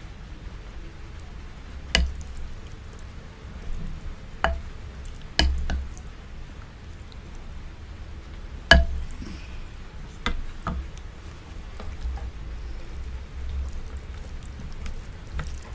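Close-miked eating sounds: wet squishing of rice and sauce and chewing, broken by about six sharp clicks, the loudest just past the middle.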